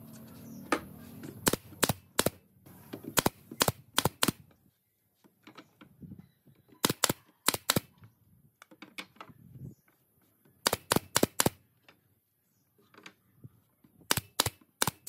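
Pneumatic nail gun firing nails into pine boards: sharp shots in five quick runs of three to five, with pauses and softer knocks of the wood being handled between.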